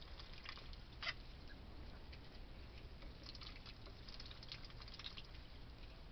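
Faint, short high-pitched peeps and light clicks from young Pekin and Welsh Harlequin ducklings in their brooder, with a sharper one about a second in and a flurry of them between about three and five seconds.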